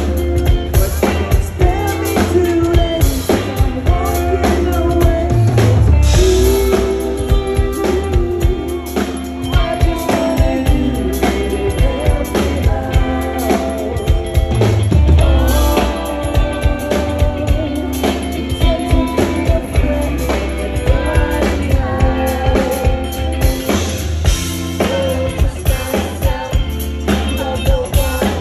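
Indie rock band playing live and amplified: electric guitars, bass guitar and a drum kit keeping a steady beat.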